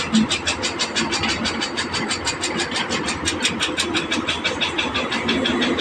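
Heavy diesel engine of earthmoving machinery running steadily with a rapid, even clatter of about nine beats a second.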